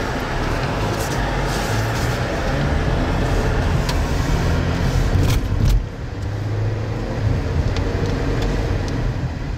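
Loud, steady low rumble of a vehicle moving through storm wind, with a few sharp clicks or knocks scattered through it.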